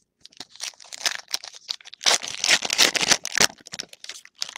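Foil wrapper of a trading-card pack crinkling as it is torn open and crumpled by hand, loudest in a dense stretch of crackling from about two seconds in to about three and a half seconds. Softer rustles and small clicks of cards being handled around it.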